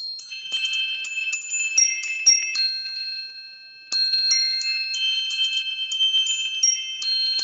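A bright bell-like chime melody of quick, high ringing notes, starting over about four seconds in.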